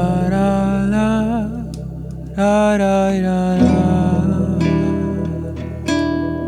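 Acoustic folk music on guitar. A wavering melody line with vibrato rides over low sustained notes for the first three and a half seconds. Then the sound drops to spaced guitar strums.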